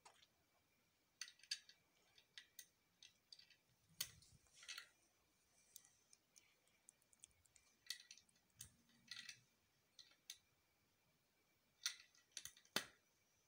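Plastic Lego bricks clicking and clattering as they are handled and pressed onto a model, a quiet, irregular scatter of sharp clicks.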